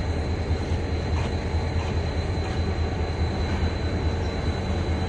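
GEU-20 diesel-electric locomotive arriving slowly at the head of a passenger train, its diesel engine a steady low rumble.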